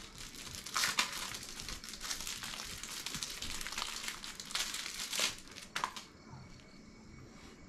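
Clear plastic packaging crinkling and rustling as small items are handled and unwrapped by hand, in irregular crackles; it quietens about six seconds in.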